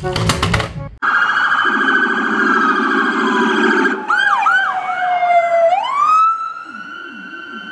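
Electronic police-style siren sound: a long tone sliding slowly downward, then fast up-and-down yelps, then a tone rising and holding steady, with abrupt jumps between the parts. It opens with a brief run of clicks.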